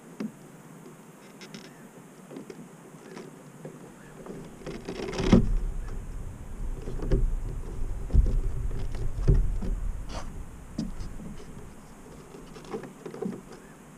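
Scattered small clicks and knocks of hands working on a foam RC floatplane's fuselage and fittings. In the middle a louder stretch of knocking over a low rumble, then back to light clicks near the end.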